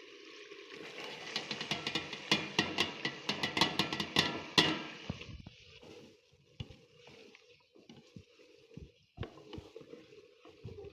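A spoon stirring and tapping in a pan of frying beef liver, over a faint sizzle. The clatter is quick and busy for about five seconds, then drops to a few scattered taps.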